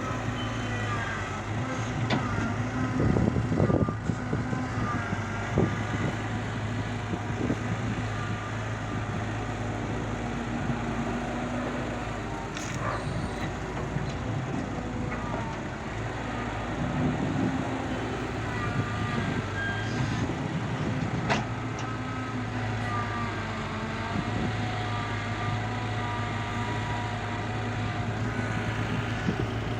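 Large diesel engine of earthmoving machinery running steadily, with a higher whine that wavers up and down and a few scattered knocks.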